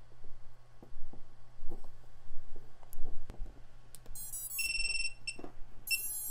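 Small clicks as the battery connector is pushed in, then the quadcopter powers up: a quick stepped run of electronic startup tones followed by a long high beep and a few short beeps. They are the power-on signal of the freshly connected quad.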